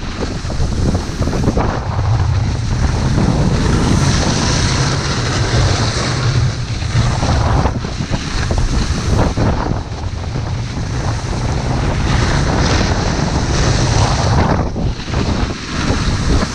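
Wind buffeting the action camera's microphone while a snowboard slides and carves over snow: a loud, steady rushing noise with a constant low rumble that swells and dips a little.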